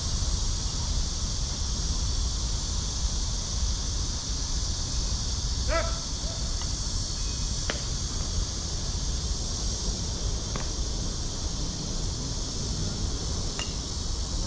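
Steady high-pitched drone of insects with wind rumble on the microphone. A brief shout comes near the middle, and a few sharp knocks follow in the second half.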